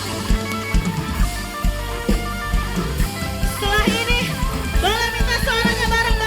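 Live dangdut band music: guitar and drum kit playing a steady beat, with a wavering, gliding lead melody coming in about four seconds in.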